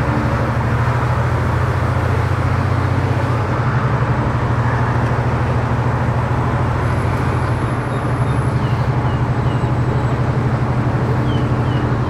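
Blue songthaew (pickup-truck bus) under way: its engine runs at a steady low hum under constant road and wind noise.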